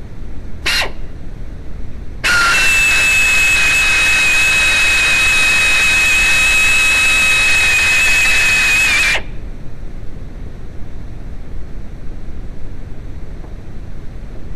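A power tool running for about seven seconds with a loud, steady high whine, then stopping abruptly, preceded by a brief falling squeal.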